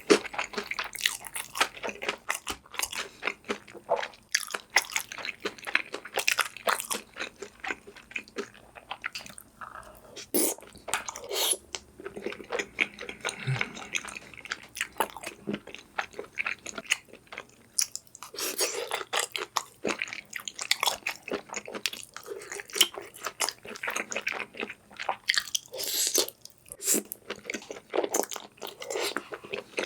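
Close-miked eating: a steady run of bites, crunches and chewing, with a couple of short pauses along the way.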